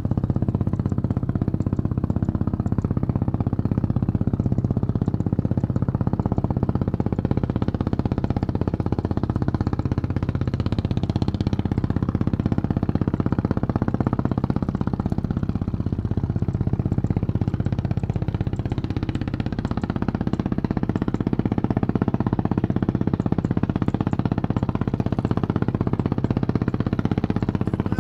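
A steady low engine drone that hardly changes.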